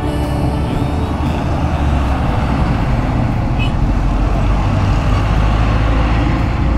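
Road traffic with trucks and cars passing close by: a loud, steady low rumble of engines and tyres.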